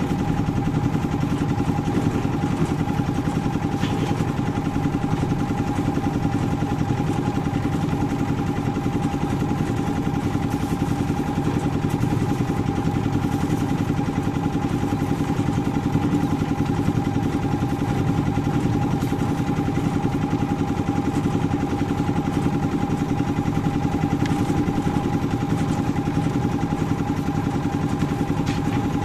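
Concrete mixer's engine running steadily at a constant speed, with a steady whine over the low engine sound.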